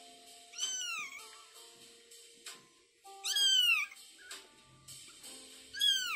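Newborn kitten mewing three times: short, high-pitched cries that rise briefly and then fall, the middle one the longest and loudest.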